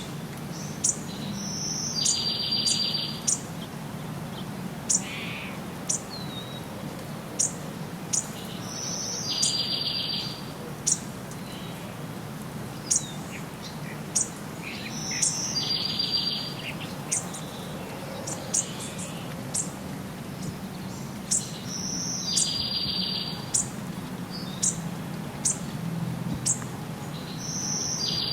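Birds calling: a short buzzy call repeats about every six or seven seconds, with sharp high chirps in between. A steady low hum runs underneath.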